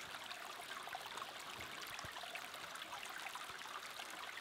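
Small rocky brook trickling steadily over stones, a faint, even water sound.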